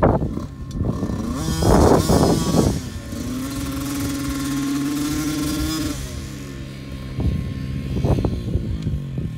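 Dirt bike engine revving and running as it rides around the course. The pitch rises and falls in surges, is held fairly steady for about three seconds in the middle, and surges again near the end.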